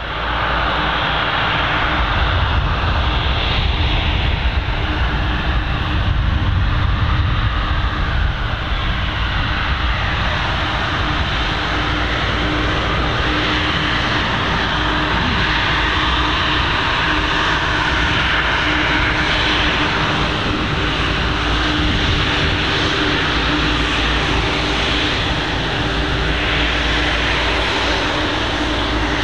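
Rolls-Royce Trent 800 turbofans of a British Airways Boeing 777-200ER running at taxi power as the airliner rolls toward the runway. The engine noise is steady, with a low hum held under it throughout.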